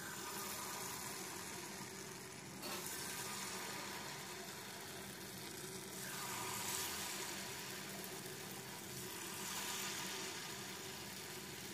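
Batter-coated potato cubes sizzling as they deep-fry in a pan of hot oil. The steady hiss of the frying gets louder about three seconds in and again about six seconds in, as more battered pieces go into the oil.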